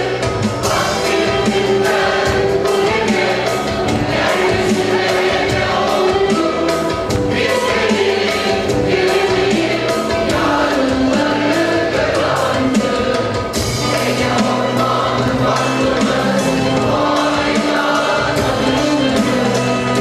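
A mixed choir of men's and women's voices singing a Turkish art music (Türk sanat müziği) song, continuously.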